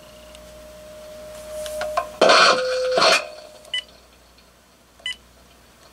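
RadioShack (Uniden) 43-1107 D cordless phone handset: a faint steady tone, then a loud burst of noise with a tone about two to three seconds in, followed by two short electronic beeps as its keys are pressed.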